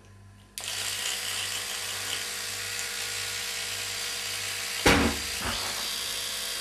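Electric toothbrush switched on about half a second in and buzzing steadily, with one brief louder thump about five seconds in.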